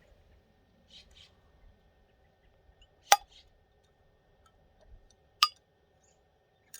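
Two sharp, ringing clinks from hot pint glass canning jars fresh out of the pressure canner, a little over two seconds apart, with a couple of soft scrapes before them and a faint steady hum underneath.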